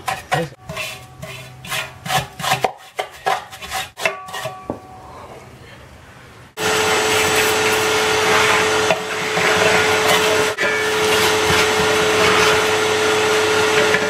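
Scraping and scratching as caked muck is worked loose around the agitator shaft in the bottom of a washing machine tub. About halfway through, a vacuum cleaner switches on and runs steadily with a constant hum, sucking the loosened debris out of the tub.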